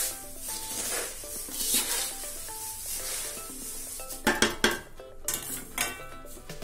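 Metal spoon stirring dry chiwda (puffed rice and fried corn flakes) in a large metal pan, mixing the spice masala through it. Rustling swishes of the dry mix, then a quick run of clinks and scrapes of the spoon against the pan about four seconds in.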